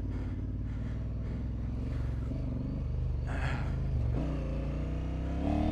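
Honda Africa Twin 1100's parallel-twin engine running at steady, fairly low revs while ridden off-road. A short hiss comes about three and a half seconds in, and the revs dip briefly just after.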